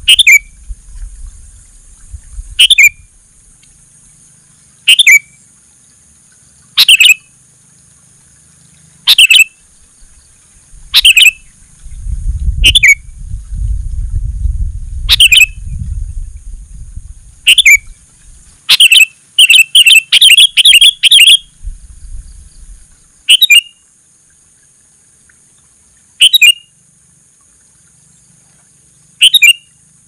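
Sooty-headed bulbul giving short calls that drop in pitch, one about every two seconds, with a quick run of calls about twenty seconds in. A low rumble sits under the calls between about twelve and sixteen seconds in, and a steady high hiss lies behind them.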